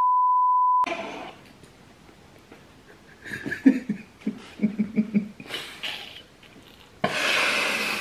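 A steady, pure beep like a TV test-card tone, about a second long, cutting off abruptly as an edit effect. Then quiet, breathy laughter from two men, and near the end a second-long burst of hiss.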